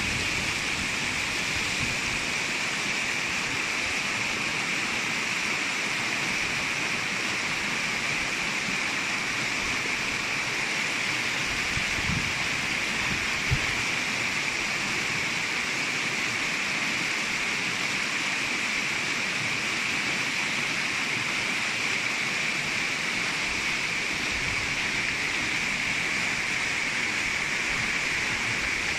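Fast water rushing over rocks in the stream flowing out of a karst spring: a steady rushing hiss. Two brief low knocks sound about midway.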